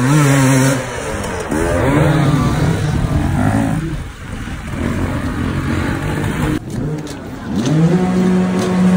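Dirt bike engine revving in several swells, its pitch climbing and falling, then climbing and holding near the end.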